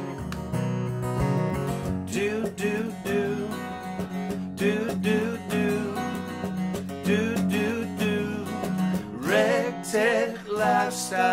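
Outro theme music led by strummed acoustic guitar.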